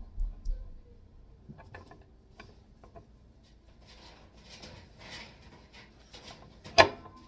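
Small die-cast metal model parts being handled and fitted: soft rubbing and scattered light clicks, a few dull bumps at the start, and one sharp click near the end as a part seats.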